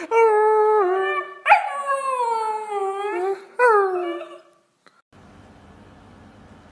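A dog howling in three long, drawn-out calls that slide down in pitch over about four seconds. It then cuts off abruptly to a faint steady hum.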